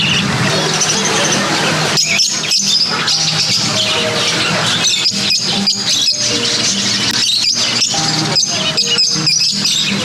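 Many small cage birds chirping together, over background music with a steady rhythm.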